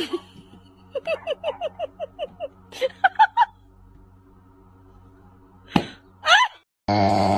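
A person laughing behind the camera: a quick run of short, falling 'heh' sounds, then a few more, over a steady low hum. A brief click and a rising exclamation come near the end, and a loud rasping sound cuts in abruptly at the very end.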